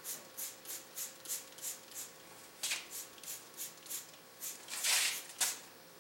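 Hand trigger spray bottle squirting degreasing cleaner onto an engine in quick short pumps, about three a second, with a longer, louder spray about five seconds in.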